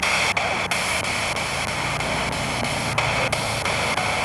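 Spirit box sweeping through radio stations: a steady hiss of static, chopped every fraction of a second as it jumps from one frequency to the next.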